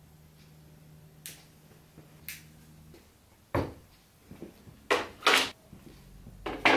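Cut wooden slats and battens being set down on a wooden plank table: a few sharp wooden knocks, the loudest a close pair about five seconds in and another pair near the end. Two faint ticks come in the quieter first half.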